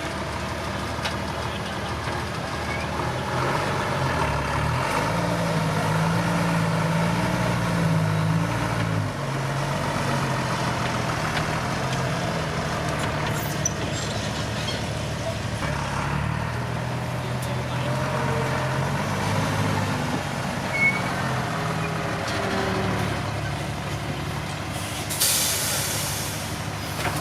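Heavy dump truck's diesel engine running, its pitch rising and falling with the throttle. Near the end, a short hiss of air brakes.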